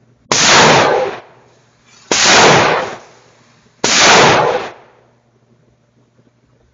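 Three gunshots, evenly spaced about 1.7 seconds apart, each hitting suddenly and dying away within a second.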